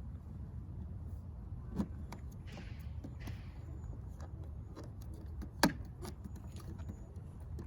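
Plastic window louver being handled and pressed into place on the car, over a steady low rumble: two sharp knocks, a small one about two seconds in and a louder one past five seconds, with a couple of short rustles between them.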